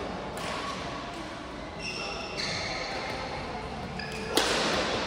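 Badminton doubles rally: shoes squeaking on the court and sharp racket hits on the shuttlecock, the loudest hit about four seconds in.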